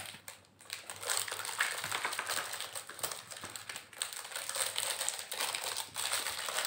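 Thin plastic and foil wrappers crinkling and crackling as they are unwrapped and torn open by hand, starting about a second in and going on steadily.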